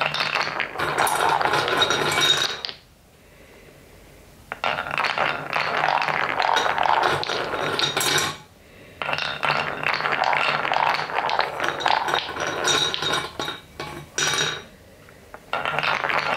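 Wooden balls rolling and clattering along a wooden block marble run, knocking into one another as they pile up in a spiral tray. The clatter comes in stretches of a few seconds, with three short lulls.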